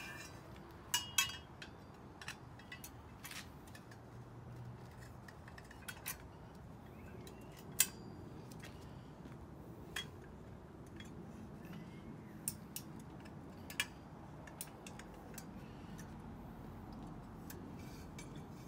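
Black metal tube parts of an animatronic's support stand clinking and clacking against each other as they are fitted together: a dozen or so sharp metallic clicks at irregular intervals.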